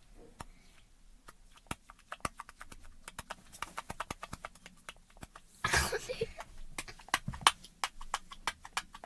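A soft, sticky mochi squishy toy being squeezed and worked in the fingers, giving a quiet, irregular run of small sticky clicks and crackles, several a second, with a short rustling burst a little past halfway.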